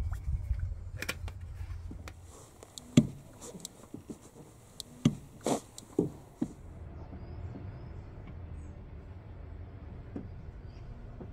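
A handful of sharp clicks and knocks from the Nissan Micra K12's clutch pedal being pressed and let back up while the clutch is bled, over a faint hiss. A few faint bird chirps near the end.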